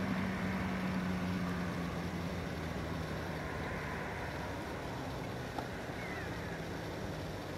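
A low, steady motor hum that fades away over the first few seconds, under a constant wash of wind noise on the microphone.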